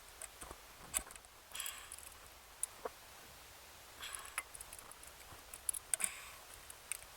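Scattered light clicks and short scrapes of small engine parts and tools being handled during work on a boat engine's distributor, with a few sharper clicks about a second in and near three and six seconds in.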